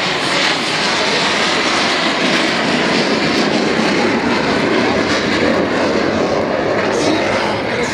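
Rolls-Royce Viper turbojet of an Aermacchi MB-339 jet flying past in a display manoeuvre: a loud, steady jet roar.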